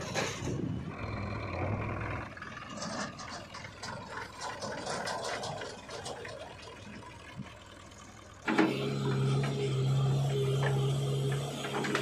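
Diesel tractor and backhoe-loader engines working, with rattling and clatter. About eight and a half seconds in, a louder, steady engine sound starts abruptly.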